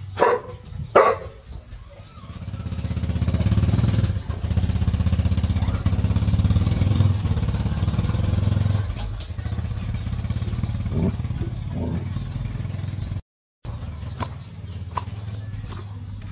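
A dog barks twice at a snake, then a motorcycle engine runs steadily for about ten seconds, loudest in the middle before easing off, with a few fainter barks near the end.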